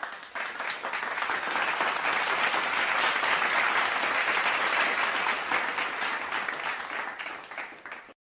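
Applause: a crowd of many hands clapping, building up over the first second and fading out near the end.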